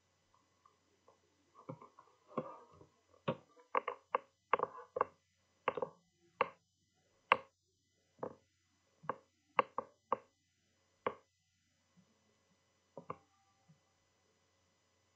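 Irregular sharp clicks and taps from computer keys or buttons being pressed to page through a document, some in quick pairs, most of them in the first ten seconds, over a faint steady electrical hum.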